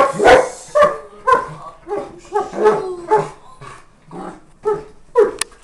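Leonberger dog calling in a rapid run of short barks and whines, about a dozen, the loudest right at the start: an excited, happy greeting.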